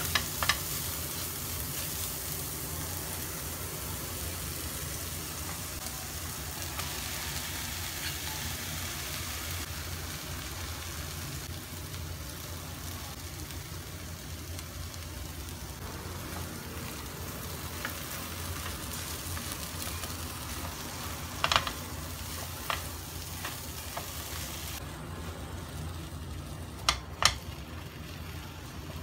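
Scrambled egg, sliced chilli and cucumber sizzling in oil in a nonstick frying pan while being stirred with a silicone spatula. There are a few sharp knocks about two-thirds of the way through and again near the end, and the sizzle turns softer in the last few seconds.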